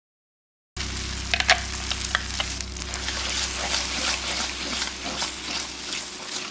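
Moong dal bubbling and sizzling in an aluminium pan on a gas stove: a steady crackling hiss over a low hum, with a few sharp pops just after it cuts in under a second in.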